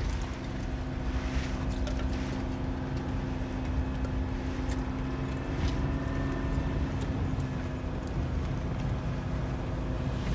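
Landing craft's engine running with a steady drone as the boat motors through the sea.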